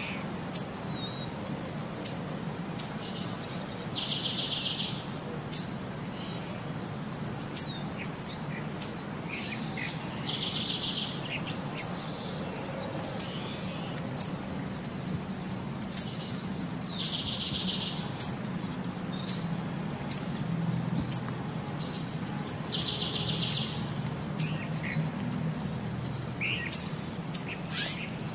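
Birds chirping: short sharp high chirps about once a second, with a brief rapid trill that comes back about every six seconds.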